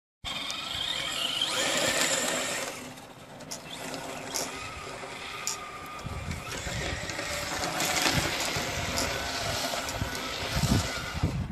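Traxxas rally RC car driving over snow: its motor whines, rising in pitch about a second or two in, then runs on unevenly as the car turns and slides. Wind buffets the microphone from about six seconds in.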